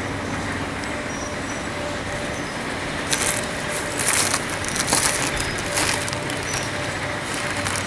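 Heavy demolition machinery running with a steady low hum, with a run of crunching knocks about three to six seconds in, typical of concrete being broken up.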